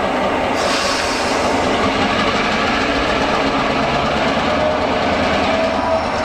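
EMD GP38 diesel-electric locomotive moving slowly across a grade crossing. Its engine runs steadily while its wheels roll over the rails.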